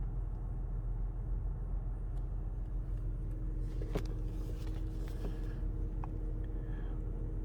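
BMW 740 idling steadily with a low rumble, heard from inside the car while the transmission will not engage Park and shows a fault. A single click about four seconds in.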